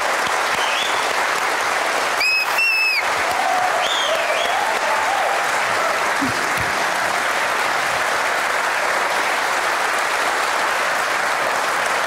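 A large studio audience applauding steadily, a dense, even clapping of many hands.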